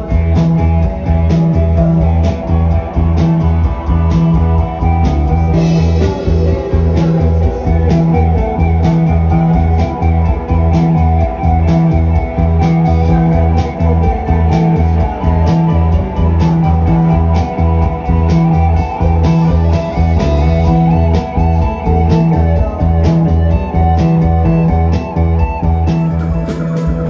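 Live psychedelic rock band playing loud: electric guitars over bass and drums that keep a steady, pulsing beat.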